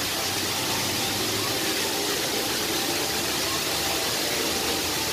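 Steady rush of a waterfall pouring down a broad rock face in many streams, an even hiss-like noise that does not change.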